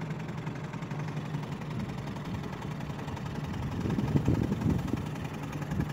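Boat motor running slowly, a steady low hum, with a louder irregular stretch of noise about four seconds in.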